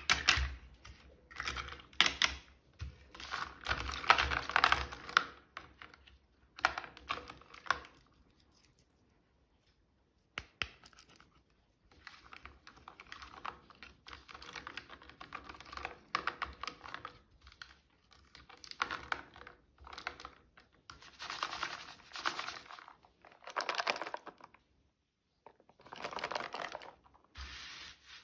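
Plastic toy packaging and small doll pieces being handled and unwrapped: irregular clicking, tapping and crinkling in bursts, broken by two short pauses.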